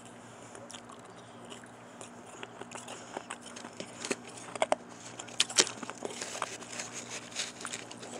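A mouthful of powdery shaved ice and crushed ice being chewed: a run of crisp crunches, sparse at first and denser from about two seconds in, loudest around the middle.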